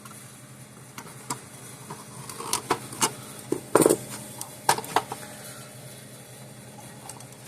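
About a dozen sharp clicks and taps, bunched in the middle few seconds, as small plastic and metal parts and wire connectors are handled on the bench, over a steady low hum.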